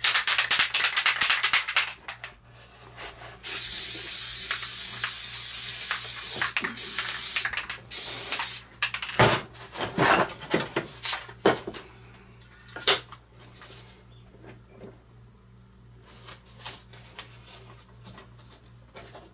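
Aerosol spray adhesive hissing out of the can in several bursts, the longest about three seconds. Then scattered knocks and taps.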